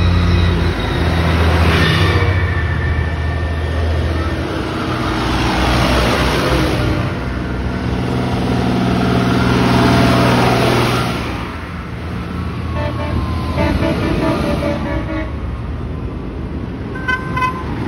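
Farm tractors driving past one after another, their diesel engines swelling and fading as each goes by. Several short horn toots sound in the last few seconds.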